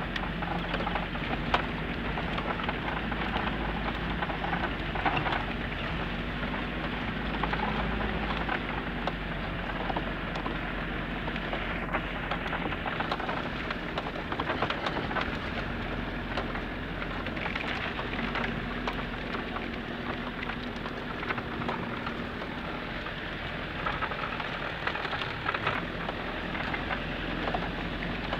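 Toyota Land Cruiser LJ73 being driven over a rough dirt track, heard from inside the open vehicle: a steady rush of road and wind noise full of small crackles and rattles, over a low engine drone.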